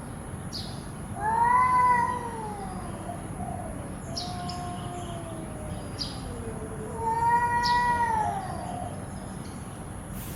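Cat meowing: a long, drawn-out meow about a second in and another about seven seconds in, with softer, lower meows between them. A few faint clicks and a thin, steady high whine run underneath.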